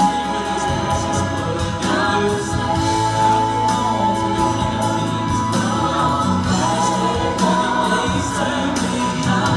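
A man singing a gospel song into a handheld microphone, over accompaniment with choir-like backing vocals.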